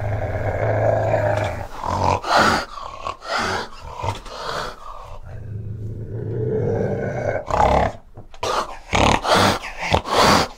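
An animal growling with a low, steady rumble, broken by a series of short, harsh noisy bursts.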